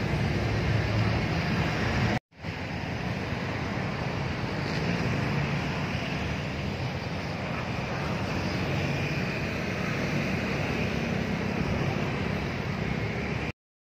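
Steady outdoor noise of road traffic with wind on the microphone, broken by a short dropout about two seconds in and cutting off suddenly near the end.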